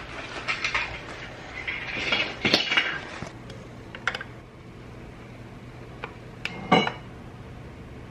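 Small hard plastic toy pieces handled and set on a countertop: a busy patch of rustling and knocks over the first three seconds, then a few isolated sharp clicks.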